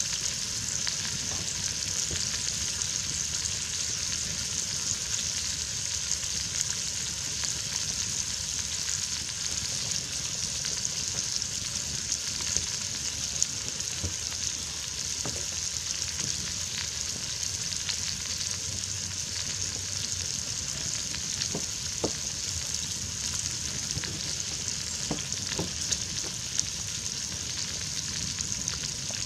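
Food frying in a cast-iron Dutch oven over a wood campfire: a steady sizzling hiss with scattered sharp pops and crackles.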